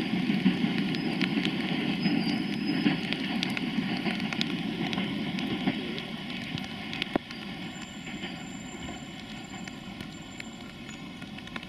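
Long freight train of covered wagons rolling away on the rails, its rumble fading out about six seconds in. Rain drops clicking and pattering throughout.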